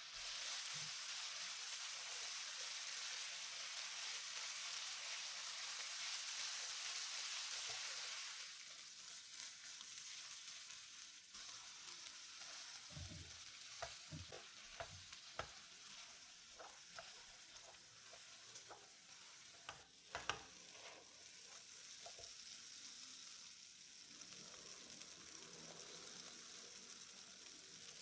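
Fava beans with onion and tomato sizzling in a frying pan, louder for the first eight seconds and then quieter. From about twelve seconds in, a hand masher knocks against the pan in a run of irregular strokes as the beans are mashed, the loudest knock about twenty seconds in.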